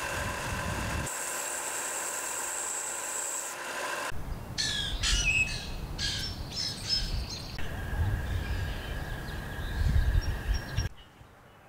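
A bench belt sander's motor hums steadily for the first few seconds. After that, birds chirp repeatedly with short rising and falling calls over a low rumble, and everything drops away abruptly near the end.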